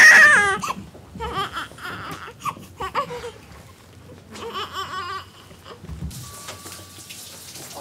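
Newborn baby crying: a loud, high, wavering cry right at the start, then softer whimpering cries. About six seconds in, a steady hiss begins.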